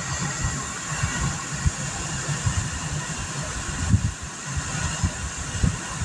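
A 12-volt DC rooftop air conditioner running in eco mode, its fan and compressor at about 60%, giving a steady rush of cold air from the vent. The airflow buffets the microphone with irregular low thumps.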